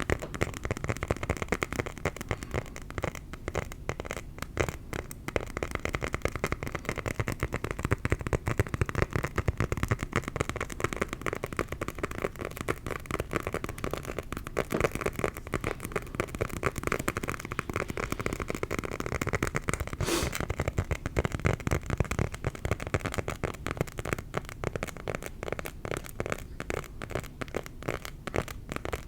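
Fast, unbroken tapping on a leather luggage tag, with one sharper click about twenty seconds in.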